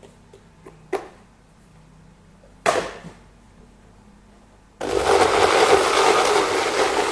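A small personal blender is switched on about two-thirds of the way in and runs loudly, grinding red chilies, bird's eye chilies, garlic and dried shrimp with a little water into a paste. Before it starts there are a few light clicks and one knock.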